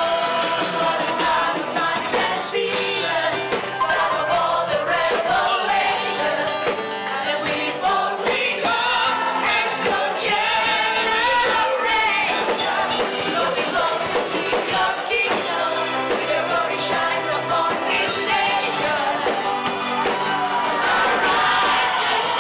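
Worship music with singing voices over a full band, continuous and steady in level.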